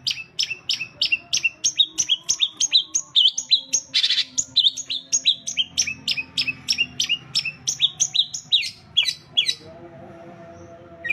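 Long-tailed shrike (cendet) calling a fast, even run of sharp falling chirps, about four a second, which stops about a second before the end.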